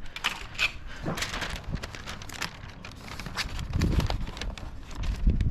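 Scattered clicks and crackles of masking paper and tape being handled and pressed onto door trim, with low gusts of wind rumbling on the microphone.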